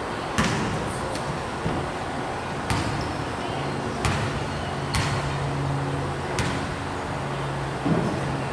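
A basketball bouncing on a hardwood gym floor: about six separate sharp bangs at uneven intervals over the steady noise of a gym, with a low hum coming in about halfway through.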